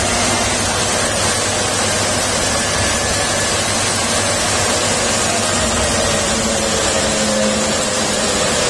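Coffee-milling machine running steadily, its motor, blower and grinding giving a loud, even mechanical noise.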